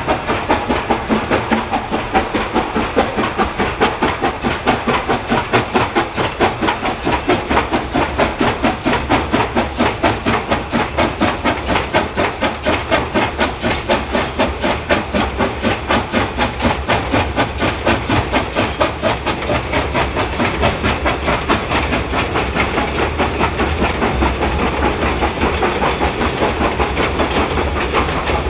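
Steam locomotive working steadily under way, its exhaust chuffing in a fast, even rhythm over a continuous hiss of steam.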